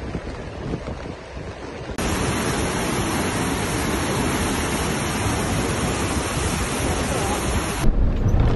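Fast-flowing floodwater rushing through a swollen creek channel. It starts softer, then about two seconds in jumps to a louder, steady rush that cuts off suddenly near the end.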